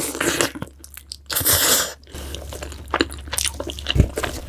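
Close-miked eating: a crunchy bite at the start and a louder, longer crunch about a second and a half in, followed by chewing with small mouth clicks.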